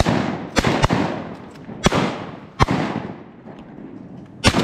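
Shotguns firing at ducks, about five shots from more than one hunter in quick, uneven succession, each blast trailing off in a long echo.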